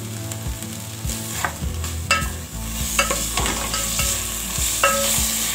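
Beef chunks frying and sizzling in freshly added oil in a metal pot while being stirred with a wooden spoon. The spoon knocks and scrapes against the pot several times, and the sizzle grows louder as the oil heats. This is the browning stage after the boiling water has cooked off.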